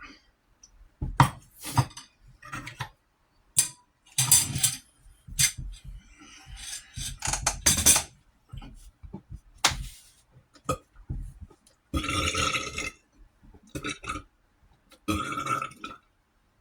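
A man burping loudly several times, with the longest burp, about a second long, around twelve seconds in. Short clicks come between the burps.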